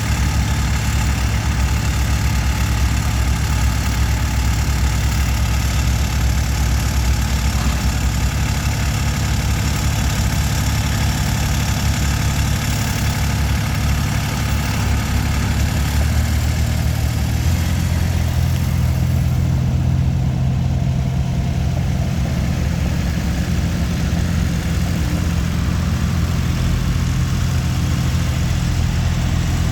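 Engine of a 2016 Terramite T7 compact loader/backhoe running steadily, its note changing about two-thirds of the way through.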